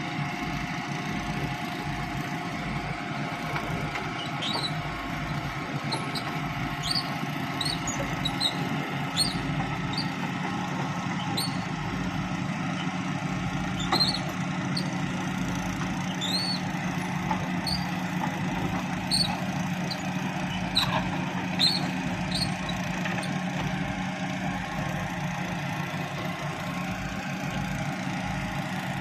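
Heavy machinery diesel engine running steadily, with about a dozen short high squeaks scattered through the middle part as the Hitachi EX135UR excavator is moved off the truck.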